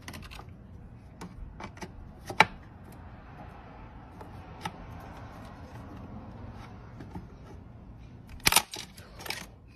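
Plastic clicks and knocks of a RAM stick being handled and pressed into a motherboard's memory slot, the slot's retaining latches snapping shut. A scattered handful of sharp clicks, the loudest a quick pair near the end.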